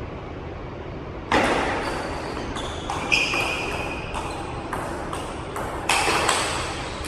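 Table tennis ball clicking sharply as it is struck and bounces, about two clicks a second starting about a second in, each ringing briefly in the large hall.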